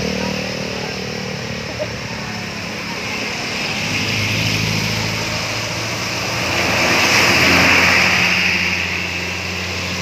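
Road traffic on a wet road: engines running and tyre noise, swelling as a large intercity coach passes close about seven seconds in.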